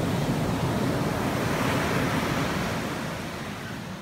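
Ocean surf breaking and washing up a sandy beach: a steady rush of waves that eases slightly near the end.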